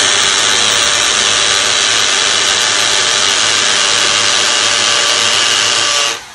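Corded hammer drill in hammer-drill mode boring into brick. It runs at a steady loud level, with the hammer action letting the bit go all the way in, then cuts off abruptly near the end.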